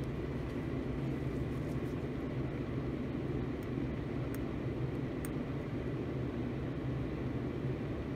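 Homemade laminar flow hood's blower running steadily: an even rush of air with a low hum and a faint high whine. A few light ticks sound over it.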